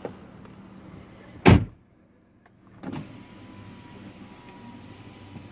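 A loud thump about one and a half seconds in, then a 2016 Chrysler Town & Country minivan's driver-side power window motor running for about two seconds with a faint steady whine as it moves the glass.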